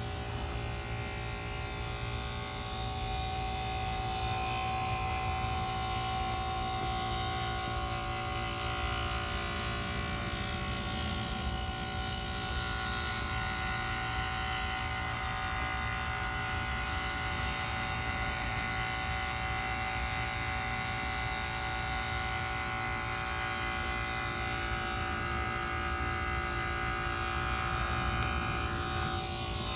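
1993 Carrier Tech2000 1.5-ton heat pump running steadily: a continuous low mechanical hum with several steady tones over it.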